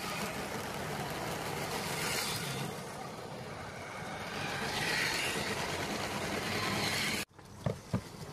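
A motorised LEGO train running along plastic LEGO track close by, a steady running noise with a faint hum. It cuts off abruptly near the end, leaving a few faint clicks.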